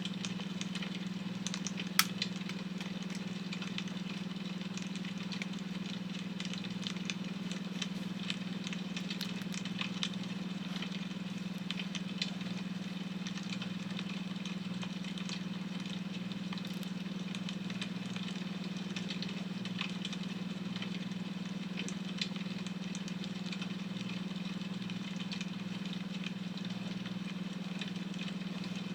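Wood fire crackling, with scattered sharp pops (the loudest about two seconds in), over a steady low hum of a beta-wave tone.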